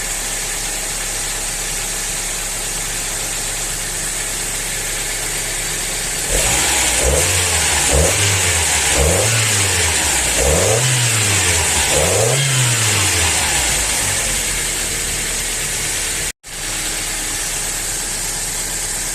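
Toyota gasoline engine idling steadily, then revved in four quick blips that rise and fall in pitch before it settles back to idle. The engine is running on freshly fitted spark plugs, with its ignition cables still leaking current and due for replacement. The sound cuts out for an instant near the end.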